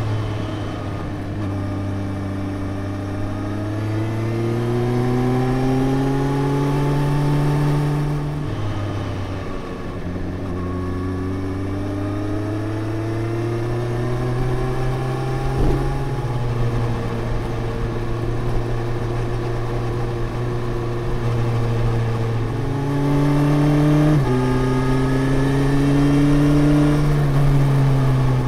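Suzuki GSX-S 1000 GT inline-four through a Yoshimura R77S slip-on exhaust, heard from the riding motorcycle. The revs climb under acceleration, drop at an upshift about eight seconds in, then climb and hold again. Near the end the pitch steps up twice at downshifts and then falls away.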